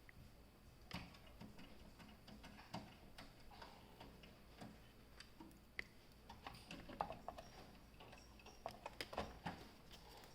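Faint, irregular small clicks and taps of a graphics card being handled and lined up with a motherboard's PCIe slot, a few quick clicks coming close together near the end.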